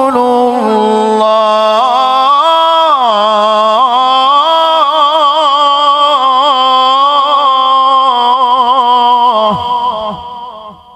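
Male Quran reciter (qari) in the melodic mujawwad style, stretching the word 'rasul' of 'Muhammadur rasulullah' into one long ornamented melodic line on a single breath, amplified through a handheld microphone. The pitch wavers, rises and falls, and the voice fades out about ten seconds in.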